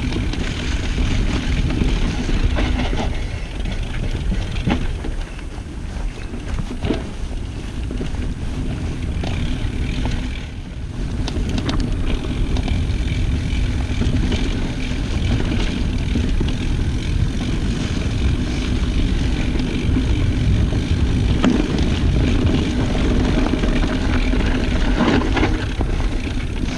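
Mountain bike riding downhill on leaf-covered dirt singletrack, with wind rushing over the microphone, tyres rolling through dry leaves and dirt, and scattered rattles and knocks from the bike over bumps.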